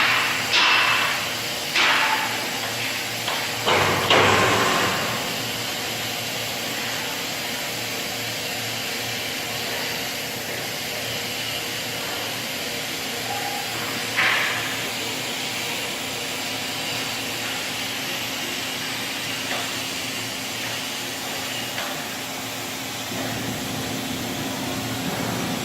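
Steady workshop machinery noise with a faint hum, broken by several sharp metallic knocks in the first few seconds and one more about halfway through.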